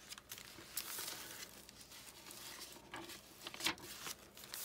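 Paper pages of a handmade junk journal being turned by hand: soft, irregular paper rustling with a few sharper flicks of the pages.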